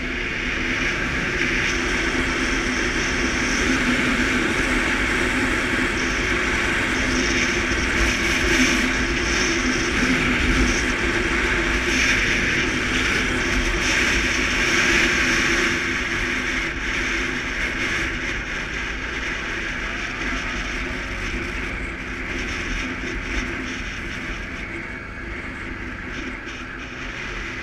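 Suzuki KingQuad ATV's engine running steadily while riding, with wind and road noise. It grows louder over the first few seconds and eases off gradually through the second half.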